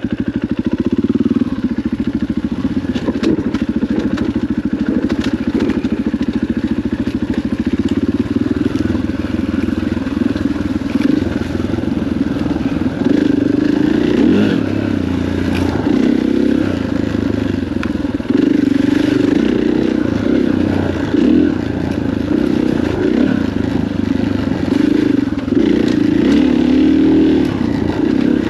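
KTM 500 EXC dirt bike's single-cylinder four-stroke engine running under way on a rough trail, the revs rising and falling with the throttle, with occasional knocks and clatter from the bike over the ground. The clutch is hot and dragging a little, so the bike is accelerating poorly.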